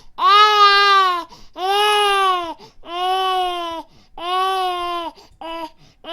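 Infant crying: four long wails of about a second each with short breaths between them, then a brief cry near the end and another wail starting as it closes.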